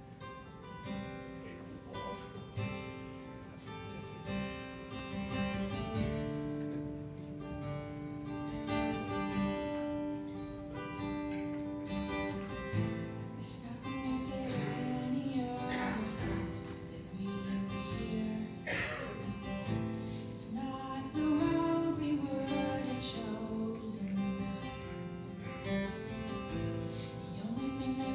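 Acoustic guitar playing, with a woman's singing voice coming in about halfway through.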